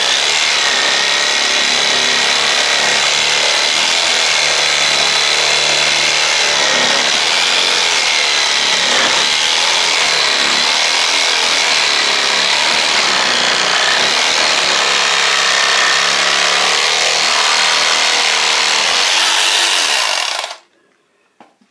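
Electric jigsaw cutting through a wooden board, its motor running steadily with a high whine, then stopping abruptly about twenty seconds in.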